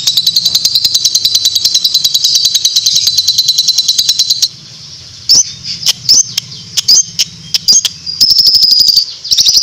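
A small bird giving a long 'ngekek': a very rapid, even chattering trill of high-pitched notes that breaks off about four and a half seconds in. A few separate short upswept chirps follow, then the rapid trill starts again near the end.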